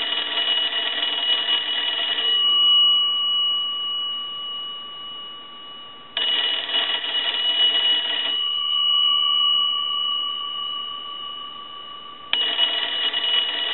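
The twin bell gongs of a Kellogg wooden wall telephone ring in three bursts of about two seconds, one every six seconds, driven by a ringing cycle. Between the bursts the gongs keep sounding and slowly fade.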